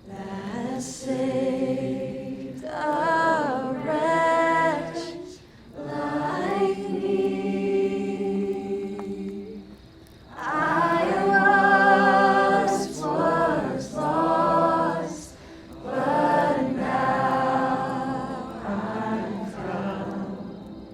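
A choir singing wordless harmonies, unaccompanied, in held phrases a few seconds long with short gaps between them.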